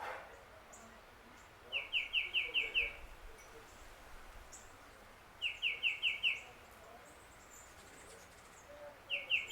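A songbird singing the same phrase over and over: a quick run of five or six identical clear notes lasting about a second, repeated about every four seconds. Fainter, higher chirps from other birds come in between.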